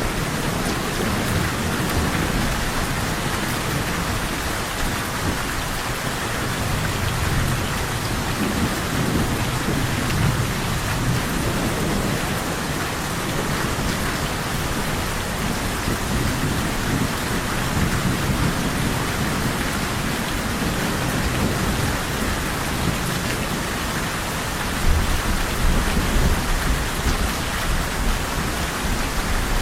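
Steady heavy rain falling, with low rolling thunder: a rumble swells about a third of the way in, and another, louder one comes near the end.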